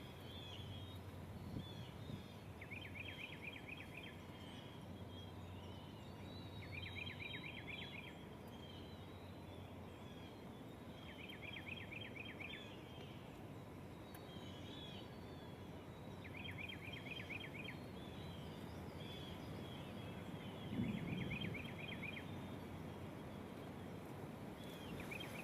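A songbird's fast trill, about a second long, repeated about every four to five seconds, with other faint bird chirps between, over a low outdoor rumble.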